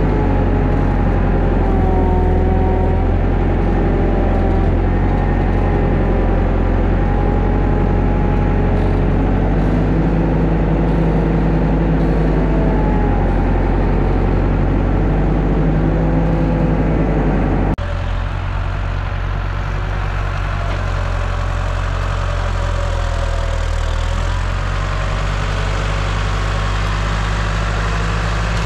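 International Hydro 85 tractor's diesel engine running steadily, heard close up from the driver's seat with a wavering whine over it. About two-thirds of the way through the sound changes abruptly to the same tractor heard from further off as its front loader pushes brush.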